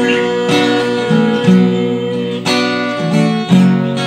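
Acoustic guitar strummed in an instrumental passage between sung lines, chords struck about twice a second and left ringing.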